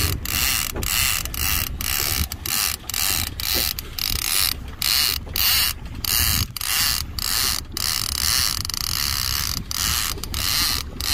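Big-game fishing reel's ratchet and drag sounding in rapid pulses, about two a second, under the load of a hooked porbeagle shark fighting on the line.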